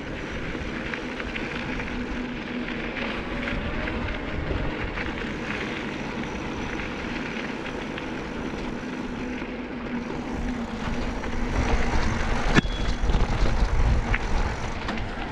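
Knobby fat-bike tyres rolling along a dirt track, a steady hum. About three-quarters of the way through it turns rougher and louder over stony ground, with one sharp knock.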